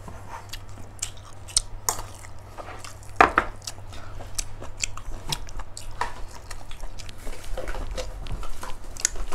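A person eating rice and braised chicken with chopsticks from a bowl: close chewing and mouth smacks with irregular sharp clicks, the loudest about three seconds in.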